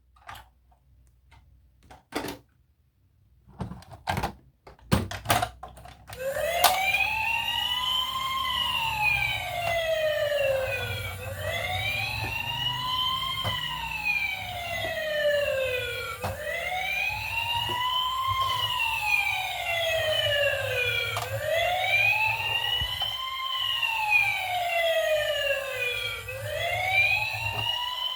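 Toy emergency vehicle's electronic siren wailing, its pitch rising and falling in slow sweeps about every five seconds. It starts about six seconds in, after a few faint clicks.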